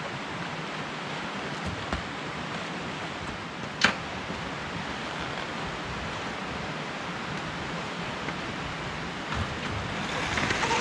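Steady wind hiss, with one sharp click about four seconds in and the noise growing a little louder near the end.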